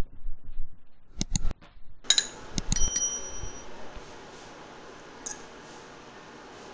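A subscribe-button sound effect: a couple of quick clicks, then a notification bell that dings and rings out about two seconds in. After it a steady faint hiss remains, with one small clink.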